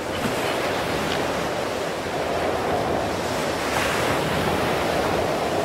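Ocean surf washing onto a sandy beach, swelling a little midway, with wind rumbling on the microphone.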